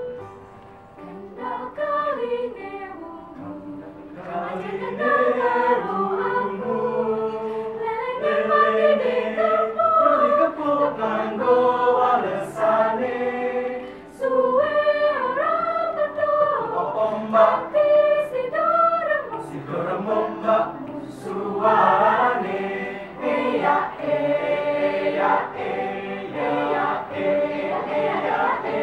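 Mixed choir of men and women singing a Javanese folk song in several parts, starting softly and growing fuller about four seconds in.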